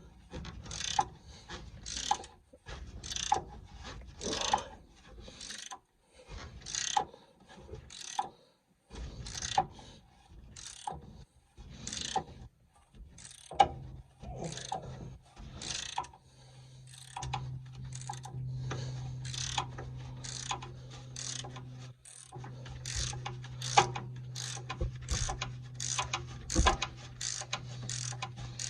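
Hand ratchet clicking in short back-and-forth strokes, a burst of clicks about every second, undoing a rear anti-roll bar drop link nut. A steady low hum comes in about halfway through.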